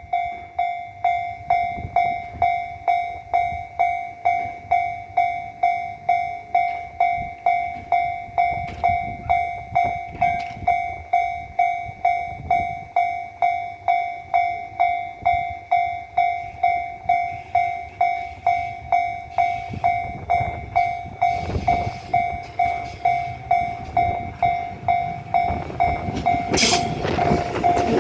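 Japanese level-crossing warning bell ringing in a quick, even ding-ding rhythm of one steady tone. Near the end the rumble of the approaching Tobu 9000 series electric commuter train rises under it.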